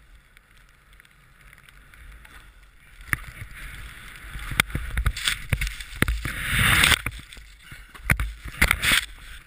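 Snowboard sliding through powder, the hiss of snow against the board rising from about three seconds in and loudest just before a wipeout, with sharp knocks against the camera. Heavy thuds near the end as the rider tumbles into the snow.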